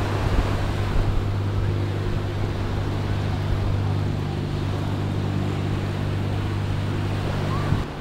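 A steady low engine hum over the constant wash of breaking surf and wind on the microphone; the hum cuts off suddenly near the end.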